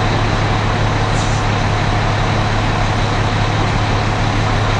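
Steady engine running, a constant low hum under an even wash of noise.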